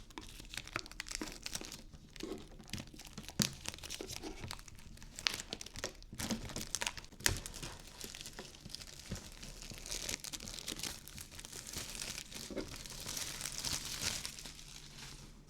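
Plastic shrink-wrap on a card box crinkling and tearing as it is pulled off by hand, with many sharp crackles. The crinkling grows denser for a few seconds near the end.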